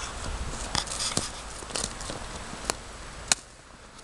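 Icy crusted snow crunching and cracking as it is dug into and broken up by hand, with scattered sharp cracks, the two sharpest near the end.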